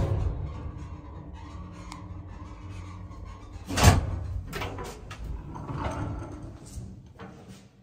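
Old ZREMB passenger lift arriving at a floor: its low travel rumble dies away as the car stops, leaving a faint hum. A loud clunk comes a little under four seconds in, then a few clicks as the hinged landing door is pushed open by hand.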